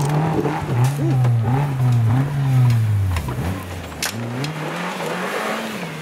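Modified Suzuki Jimny's engine revving up and down again and again as the 4x4 climbs out of a dirt rut, easing off after about three seconds once it reaches level ground. A single sharp knock about four seconds in.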